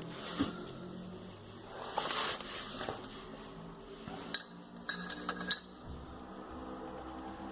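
Metal hand tools clinking and scraping, with a few sharp ringing clinks between about four and five and a half seconds in.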